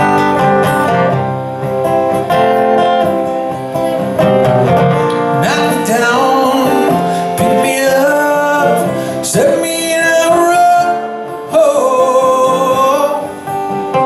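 Live solo acoustic guitar with a man singing over it in a folk-country song. The guitar plays alone at first, and the voice comes in after about five seconds.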